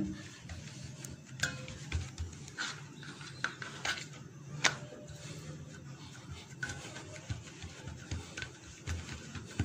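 Hands pressing and patting soft dough on a steel tray: scattered light taps and clicks, the sharpest a little under halfway through, over a faint low hum.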